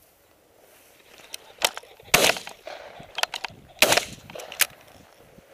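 Two shotgun shots under two seconds apart from an over-under shotgun fired at flushing rooster pheasants, both barrels used for a double. Each shot carries a short echo, and a few smaller sharp clicks fall between and around them.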